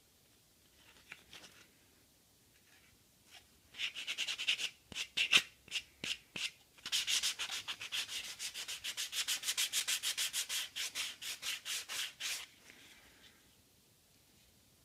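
Hand sanding the edges of a Kydex sheath with a 120-grit sanding block to smooth off the rough edges. A few short bursts of quick back-and-forth strokes come about four seconds in, then a steady run of fast strokes lasts about five seconds and stops a couple of seconds before the end.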